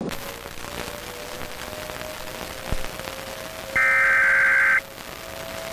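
Steady TV-static hiss with a faint hum and a single thump near the middle, then near the end a loud electronic data burst about a second long: the header tone of an Emergency Alert System broadcast.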